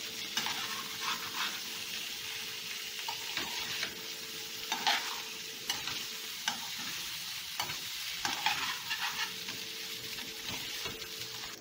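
Diced boiled potatoes sizzling as they fry in butter and margarine in a skillet. A metal spoon stirs them constantly, scraping and clinking against the pan.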